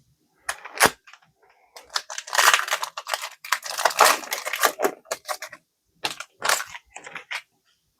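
Foil Pokémon booster pack wrapper crinkling and tearing as it is handled and opened, with a dense crackle in the middle and a few sharp clicks at the start and end.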